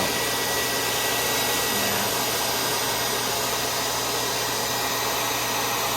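A small electric blower running steadily with an even rush of air and a faint thin high whine that stops about two seconds in.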